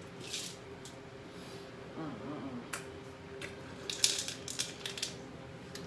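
People drinking water from glasses and a plastic bottle: short sips and sharp breaths with a few light clicks and clinks, over a faint steady hum. The sounds cluster around four seconds in.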